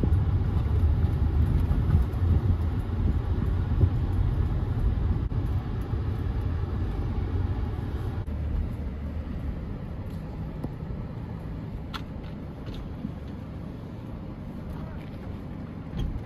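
Vehicle engine and road noise heard from inside the cabin while driving, a steady low rumble that grows quieter about halfway through. A couple of faint clicks come near the end.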